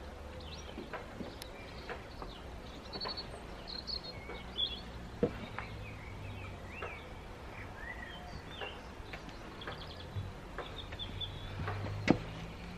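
Birds chirping and warbling in short, varied calls, over a low steady hum, with a few sharp knocks, the loudest about five seconds in and just before the end.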